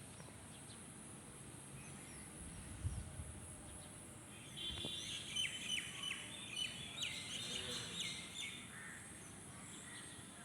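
Small bird calling in a quick run of short, repeated chirping notes, starting about four and a half seconds in and stopping about four seconds later, over a steady outdoor hiss. A low thump comes about three seconds in.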